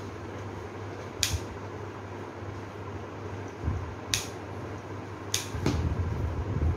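Florist's scissors snipping fern stems: four short, sharp snips, two of them close together near the end, over a steady low hum. A low rumble builds near the end.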